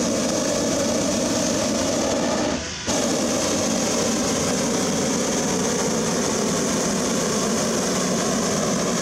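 Hot-air balloon propane burner firing in a long, steady blast, cutting out for a moment about three seconds in.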